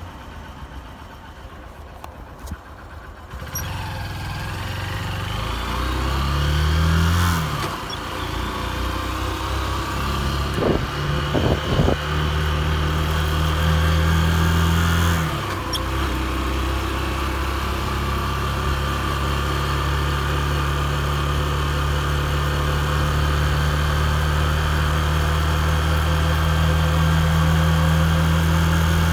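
Motorcycle engine running as the bike pulls away and rides along. The revs climb and drop back sharply twice, about 7 and 15 seconds in, at gear changes, then hold steady.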